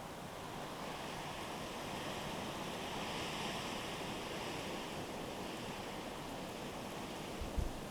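A gust of nor'easter wind rushing, swelling to a peak about three seconds in and then easing off.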